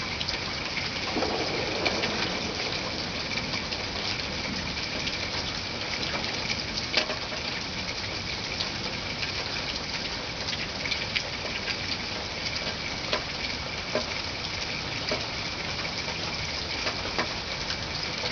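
Steady rain falling, with occasional sharp ticks of drops.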